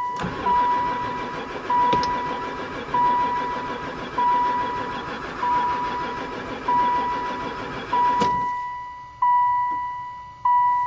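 A van's starter cranking the engine for about eight seconds without it ever firing, then stopping; the owner puts the failure to start down to no spark. A beep repeats about once a second throughout.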